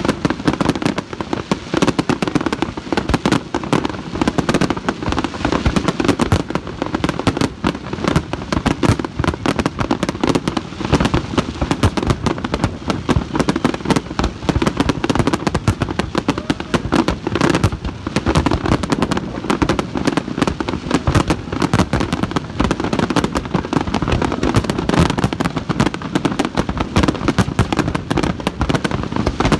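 Fireworks display going off: a dense, unbroken barrage of bangs and crackling.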